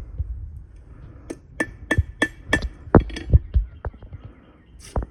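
A run of sharp metal-on-metal hammer strikes, typical of a blacksmith's hammer on iron at the anvil. Five ringing blows come about three a second, then a few scattered lighter knocks.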